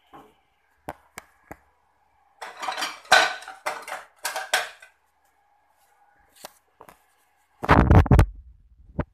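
Kitchenware clattering and clinking: a few sharp clicks, then a run of clatter, and a loud heavy knock with rattling near the end.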